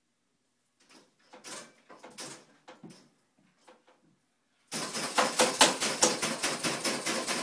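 Cable-column exercise machine clattering in a fast, even rhythm of about six clanks a second as its cable handle is worked in quick plyometric pulls, starting suddenly about five seconds in. Before that, a few faint knocks and rustles.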